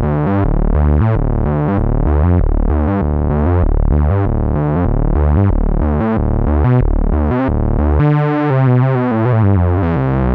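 Cherry Audio LowDown software synthesizer, an emulation of the Moog Taurus bass pedals, playing a bass line of short notes, about three a second. Near the end the notes move up into a higher register.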